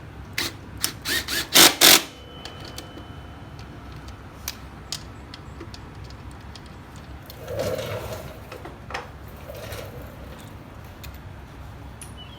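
Metal tools and brake parts being handled, clinking and knocking: a quick cluster of sharp knocks in the first two seconds, a few single clicks after, and a softer rubbing sound about eight seconds in.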